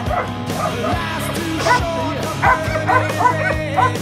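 Background music with a working kelpie barking in short, repeated yaps, coming thickest in the second half.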